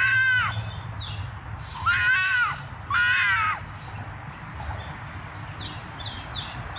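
An animal calls loudly three times, each call about half a second long and arching in pitch: once at the start, then twice close together about two and three seconds in. Faint short chirps follow over a steady low hum.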